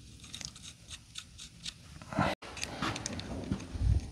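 Small metal clicks and scrapes of a steel strap clamp being worked by hand around a hydraulic pickup tube, with a louder rattle just past halfway, then the sound cuts out for an instant. A few dull knocks follow near the end.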